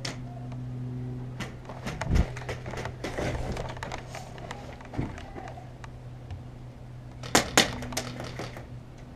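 Scattered clicks and knocks over a steady low hum, with two loud sharp cracks in quick succession about seven and a half seconds in.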